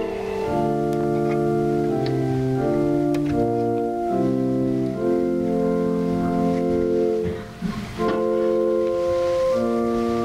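Organ playing slow, sustained chords, with a brief gap between phrases about seven and a half seconds in.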